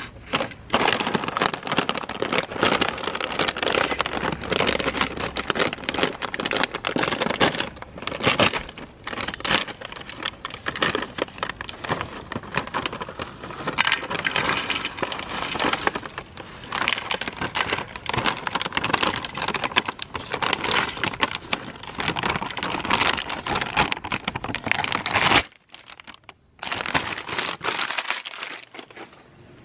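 Crunchy snack chips being crushed in a meat grinder: a dense crunching and crackling of many small cracks, which stops abruptly about 25 seconds in and comes back briefly a little later.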